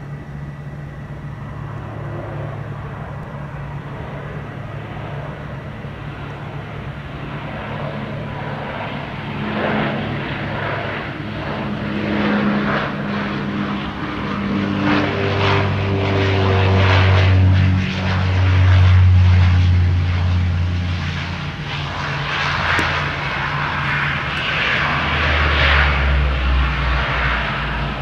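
Saab 340B twin-turboprop airliner landing: the propellers' steady drone grows louder as it comes in over the runway, drops in pitch about two-thirds of the way through, then gives way to a deeper rumble near the end as it rolls out on the runway.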